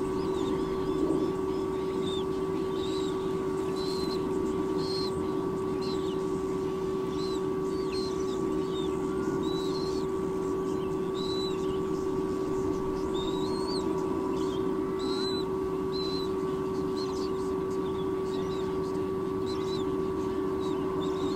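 White-bellied sea eagle nestlings peeping, short high calls coming about once a second and sometimes rising at the end, over a steady low hum.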